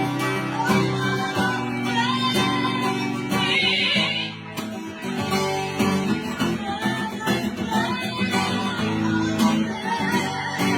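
Background music led by plucked guitar, with a steady run of pitched notes.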